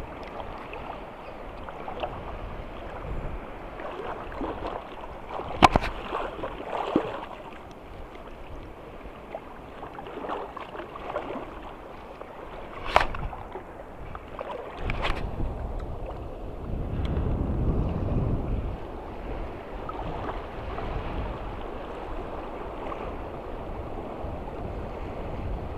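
Choppy sea water lapping and sloshing close to the microphone, with wind on the mic, a few sharp clicks, and a stronger low rumble a little past the middle.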